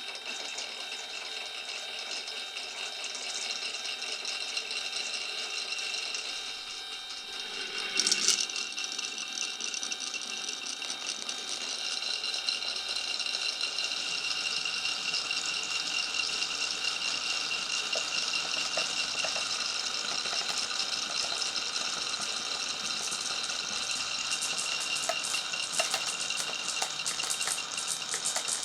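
Marbles rolling and rattling along a wooden and plastic marble run, a steady rolling noise with a high ringing tone. There is a single loud knock about eight seconds in, and a quick run of small clicks near the end as marbles clack together.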